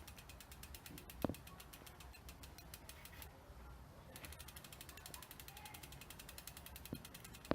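Rear wheel of a Juiced CrossCurrent X e-bike spinning freely: its hub clicks in a fast, even ratchet rhythm, with a brief break a little past halfway and an occasional light knock. The brake assembly has just been adjusted to cure a scraping noise.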